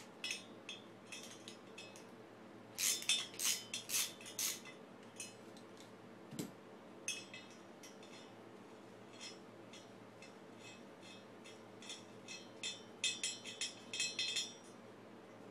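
Metal wrench clinking and clicking against the Yamaha Towny engine's cylinder head as it is worked, in irregular clusters of sharp taps, densest about three seconds in and again near the end.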